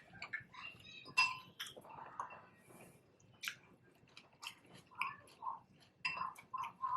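Chewing and mouth sounds while eating, with irregular wet clicks and crackles and a few light clinks of utensils or dishes.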